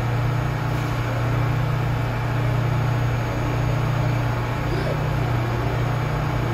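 Steady low rumble and hum in an underground subway station as a New York City subway train approaches slowly through the tunnel.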